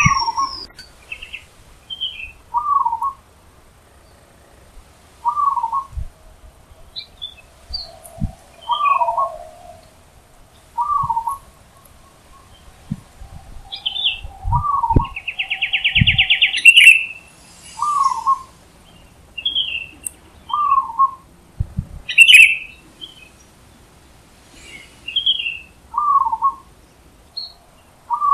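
Zebra dove (perkutut) calling in the wild: short cooing notes repeated about every two to three seconds. Other birds chirp higher over it, with a loud rapid trill about halfway through and a few low thumps.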